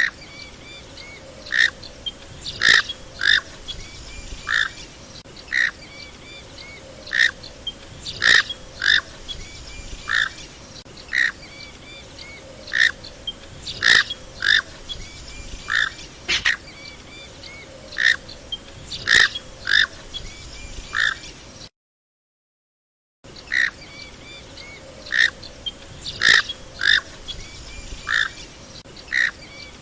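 Knob-billed duck giving short, repeated calls, roughly one a second, over a faint steady background. The calls break off for about a second and a half of complete silence past the middle, then resume.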